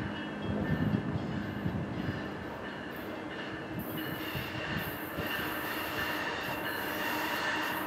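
Amtrak train approaching on the electrified line: a steady high-pitched ringing, with a hiss that grows from about halfway in as the train nears.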